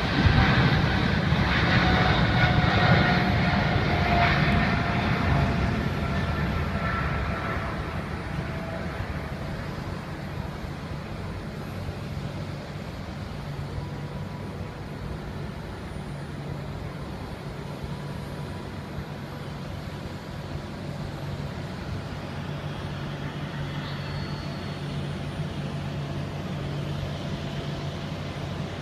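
Jet airliner's engines at takeoff power passing and moving away, their whine falling in pitch as the sound fades over the first seven or eight seconds, leaving a steady low hum.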